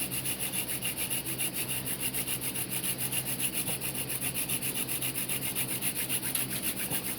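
Hand-drill friction fire: a mullein spindle spun back and forth between the palms, grinding into a notched mullein hearth board with an even, rhythmic rasp of a few strokes a second. The notch is filling with hot, smoking dust as the ember builds.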